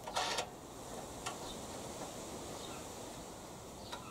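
Small handling noises as a washer and nut are fitted onto the lawnmower's handle bolt: a short scrape at the start, then a single small click about a second in, with a few faint ticks over a quiet outdoor background.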